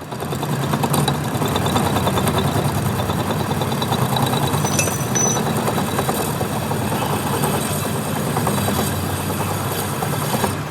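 A machine running steadily with a dense, rapid rattle.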